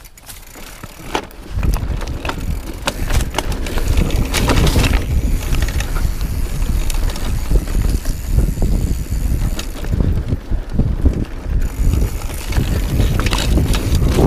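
Mountain bike riding a rough dirt and grass trail. For the first second and a half it is fairly quiet with the freewheel hub clicking. Then the tyres rumble and the bike rattles and knocks over the bumps, louder to the end.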